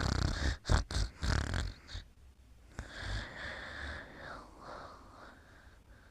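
Snoring of a sleeper: several loud, rough snores in quick succession over the first two seconds, then softer breaths with a faint wavering whistle that fade away.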